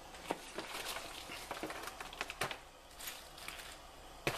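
Irregular light clicks and crackles from a pot of cabbage in water heating on the stove, not yet at a full boil.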